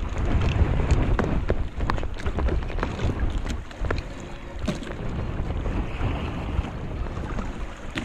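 Wind buffeting the microphone over water sloshing against a small boat, with scattered clicks and splashes as a wet gill net is hauled in by hand over the side.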